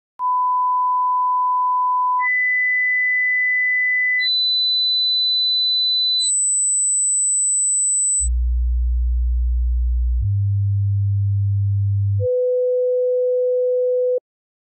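A sequence of electronic sine-wave test tones, each held steady for about two seconds: a mid-pitched tone, then higher tones rising in octave steps to a piercing high whistle, then two deep low hums, ending on a mid-low tone that cuts off sharply.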